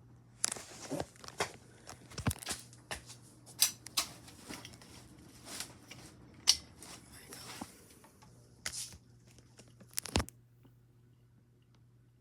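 Irregular crackling and sharp clicks, a dozen or so uneven snaps and rustles, stopping near the end, over a faint steady low hum.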